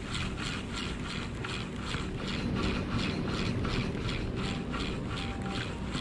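Spinning reel (Shimano Stradic C5000XG) being cranked to retrieve a jig, giving an even, rhythmic whirring pulse about four times a second over a steady rumble of wind and surf.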